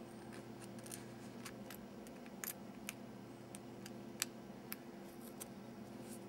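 Scattered small, sharp clicks and light ticks of a phone box and its packaging being handled, irregular, with the loudest click about four seconds in, over a steady low electrical hum.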